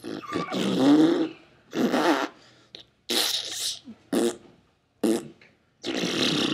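Rough, raspy vocal noises from boys instead of words: grunts and raspberry-like blurts in about six short bursts.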